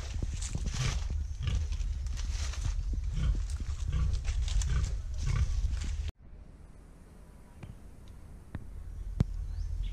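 A pig grunting from its pen, over footsteps through grass and dry leaves and wind rumbling on the microphone. About six seconds in, the sound cuts off abruptly to a quieter stretch with a few light ticks.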